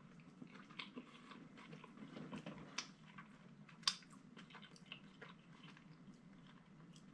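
Faint close-up chewing of a grilled chicken sandwich, with scattered soft wet mouth clicks and a sharper click about four seconds in.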